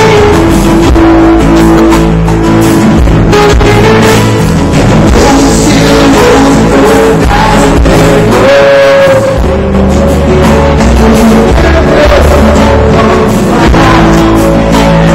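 Loud live rock band music, with guitar prominent and a voice singing; a note slides in pitch about eight seconds in.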